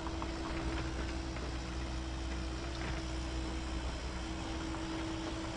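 Heavy earthmoving equipment running steadily: a constant low engine rumble with a steady whine above it.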